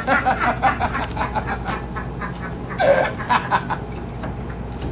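Quick, indistinct voices and laughter for about the first two seconds, and a short voice near three seconds, over a steady low machine hum.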